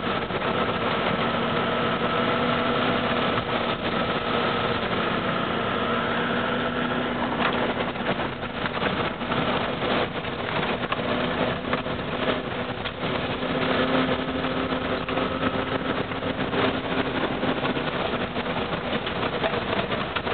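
Toyota Land Cruiser engine running at a steady pitch as the vehicle drives through floodwater, with a rough noise over it.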